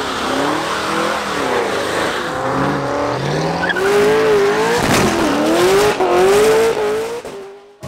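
Cadillac CTS-V's V8 revving hard through a burnout, its pitch climbing and falling as the rear tyres spin and squeal. There is a sharp break about five seconds in, and the sound cuts off suddenly near the end.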